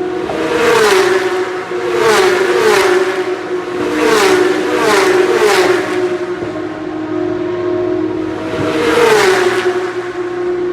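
Porsche Carrera Cup race car's flat-six engine idling with a steady drone, revved in about seven short throttle blips, each rising quickly and falling back to idle. Some blips come in close pairs.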